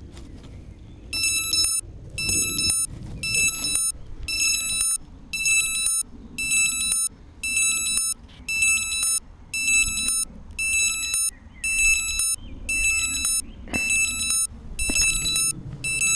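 Shrill electronic warning beeper on a hexacopter, beeping about once a second. Each beep lasts a little over half a second and has a fast buzzing warble. There is low handling rumble and a knock as the craft is picked up.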